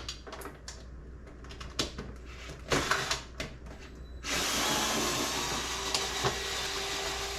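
Light clicks and knocks of screws and plastic parts being handled, then about four seconds in a cordless drill-driver starts up and runs steadily, backing out a screw from the bike's plastic bodywork.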